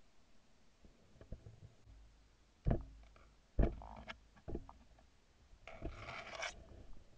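Handling noise on a shotgun-mounted camera's microphone: a few sharp knocks, the loudest two about a second apart near the middle, then a brief rustling scrape.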